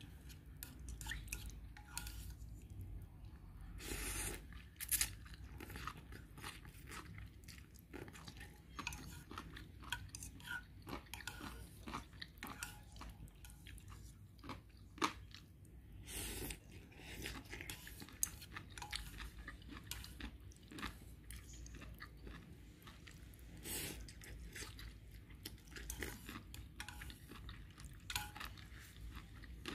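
A person eating boiled instant noodles with chopsticks from a pot: close, irregular chewing and slurping mouth sounds with scattered small clicks.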